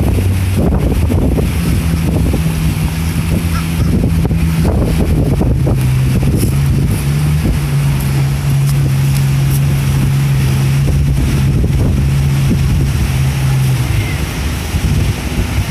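Wind buffeting the microphone over the steady low drone of a boat engine, which drops slightly in pitch about six seconds in.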